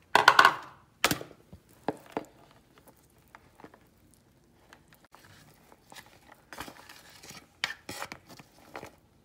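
Shelled corn kernels scraped from a dish into a glass blender jar with a spatula: scattered knocks and taps of spatula and dish against the jar, with soft scraping between and a louder burst of noise just after the start.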